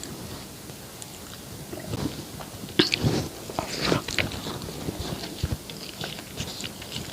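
Close-miked chewing and wet mouth sounds of someone eating, in irregular clusters of smacks and small clicks. It is quieter for the first couple of seconds, then denser in the middle and near the end.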